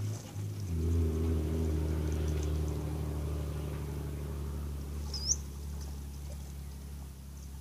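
An engine running steadily with a low hum. It shifts pitch in the first second, then slowly fades, and a short high chirp sounds about five seconds in.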